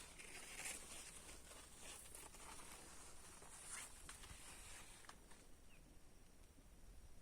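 Faint patter of light rain, heard as scattered soft crackles and ticks over a steady high-pitched drone, with a brief faint chirp about six seconds in.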